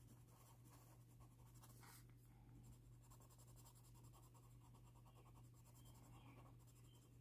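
Faint scratching of a colored pencil shading on paper, over a low steady hum.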